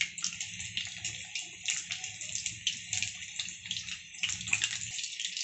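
Thread chicken (chicken strips wrapped in shredded samosa pastry) deep-frying in hot oil in a kadai: a steady sizzling hiss with frequent small crackles and pops.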